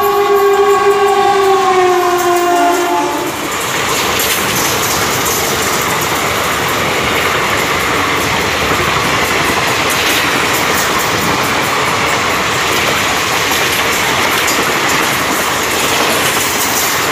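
A WAP4 electric locomotive's horn sounds one long blast, dropping slightly in pitch as the engine passes, and cuts off about three and a half seconds in. It is followed by the steady rush of ICF passenger coaches going by at speed, their wheels clicking over the rail joints.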